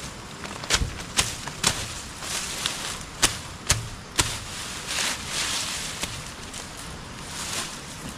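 Machete chopping through napier grass stalks: two runs of three sharp cuts about half a second apart, then the rustle of the cut grass being handled.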